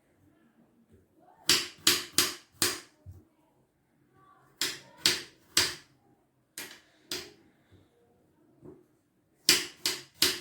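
Kitchen knife chopping through apple onto a cutting board in short runs of quick strokes: four, then three, then two, then three sharp knocks.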